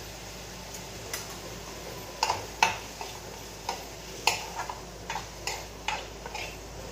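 Metal spoon clinking and scraping against a frying pan as pasta is stirred: about a dozen irregular sharp clicks over a steady background hiss.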